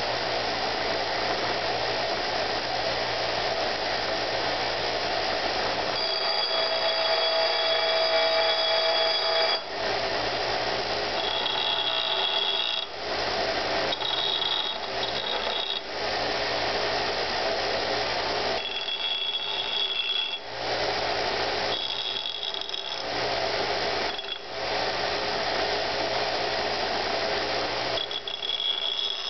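Bench grinder running steadily with a rusty steel hatchet head held against the wheel. The whining tone keeps changing and dropping out every few seconds as the metal is pressed on, shifted and lifted off.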